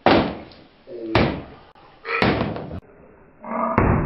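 Three loud sudden bangs about a second apart, each dying away quickly, then a rising rush of noise near the end.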